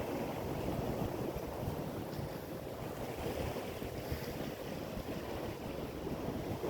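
Ocean surf washing steadily on the shore, with wind rumbling on the phone's microphone.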